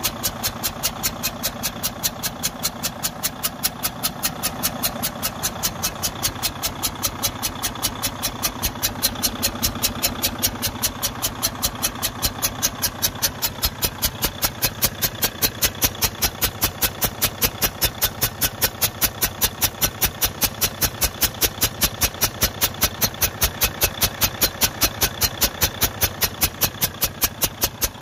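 Detroit DD15 inline-six diesel idling with a loud, sharp ticking at about five a second from the intake side. It is the sound of compression leaking past a broken, pushed-in cylinder valve.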